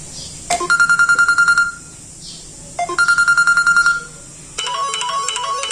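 Samsung Galaxy J1 Mini ringtones playing: a rapid pulsing beep tone sounds twice, each burst about a second long with a pause between, then about four and a half seconds in a different ringtone starts, a quick run of short melodic notes.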